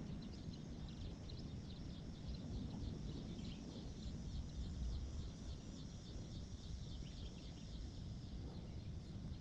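Outdoor ambience: a steady run of quick, high chirps from birds or insects, over a low rumble of wind or handling noise.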